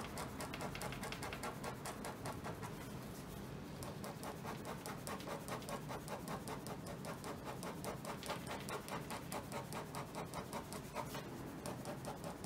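Ballpoint pen hatching on paper: light, dense parallel shading strokes scratching back and forth in an even rhythm of about four to five strokes a second.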